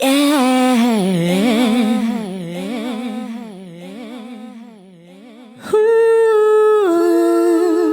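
Song intro: a wavering, ornamented vocal line that fades away, then a loud held note that comes in suddenly about six seconds in and steps down in pitch about a second later.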